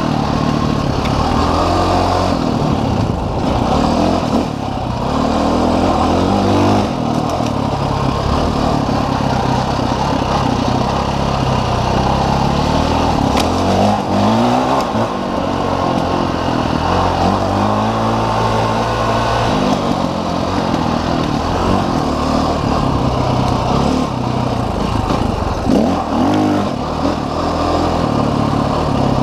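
Dirt bike engine ridden hard along a trail, its pitch rising and falling over and over with throttle and gear changes.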